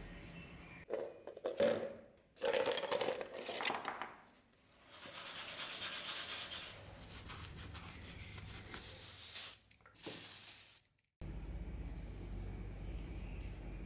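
Hands rubbing rust-remover gel along a steel dagger blade in a few loud strokes. Then a steady hiss of the blade being rinsed and scrubbed by hand under a tap. About eleven seconds in it cuts to a low steady hum.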